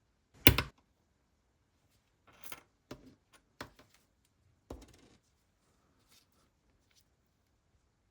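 A sharp click as the mainspring winder's plunger is pressed and pushes the coiled watch mainspring into its barrel, followed by several lighter clicks and short rattles of the small winder parts and barrel being handled.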